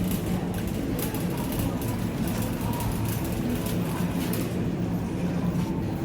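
A steady low mechanical rumble with a hum.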